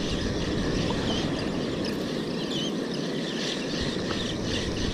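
Steady wash of sea water and wind at a rocky shoreline, with scattered short high chirps over it.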